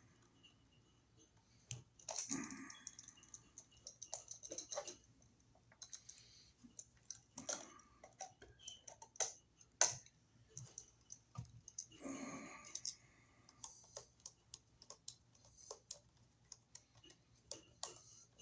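Scattered small clicks, taps and short scrapes of a flathead screwdriver and bare copper ground wire being worked on a wall outlet: the wire is looped around the outlet's green ground screw and the screw is tightened.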